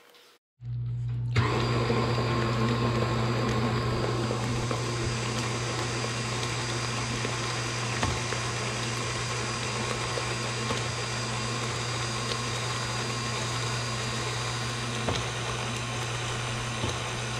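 Electric stand mixer running steadily, its flat beater turning waffle batter in a stainless-steel bowl. It starts abruptly about half a second in, with a steady motor hum under the mixing noise.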